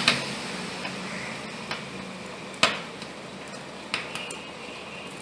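Handling of jumper wires and circuit boards: a few sharp little clicks and taps, the loudest about halfway through, as female jumper-wire connectors are pushed onto the header pins, over a steady background hiss.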